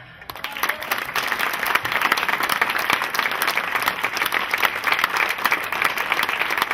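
Audience applauding: dense, steady clapping from many hands, starting a moment in right after the guitar music stops.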